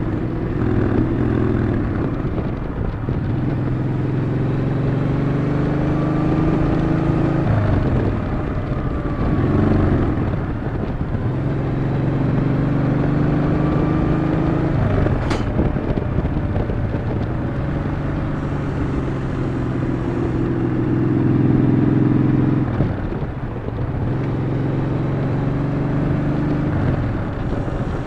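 Yamaha XV950 (Bolt) air-cooled V-twin under way, its exhaust note repeatedly building up and then dropping away as the throttle is eased or a gear is changed, with wind noise throughout. A single sharp click about 15 seconds in.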